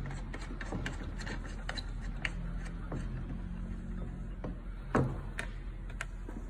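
Test leads being plugged into and fastened onto the binding-post terminals of an analog wattmeter: a run of small irregular clicks and rattles, with one sharper knock about five seconds in, over a faint low hum.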